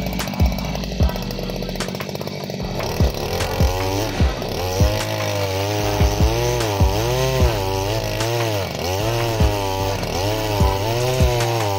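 Small two-stroke engine of a motorized oil-palm harvesting pole (mesin cantas) running, under background music with a steady beat that comes up about three seconds in.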